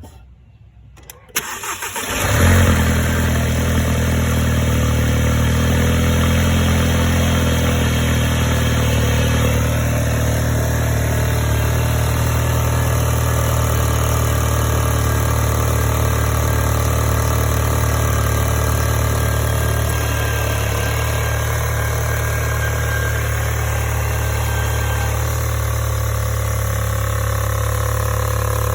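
Volkswagen Golf GTI MK7's 2.0 litre turbocharged four-cylinder cranks and starts about two seconds in, flares briefly, then settles to a steady idle with a loud ticking/clacking from the engine. The uploader traced the ticking to loose mounting bolts on the high-pressure fuel pump.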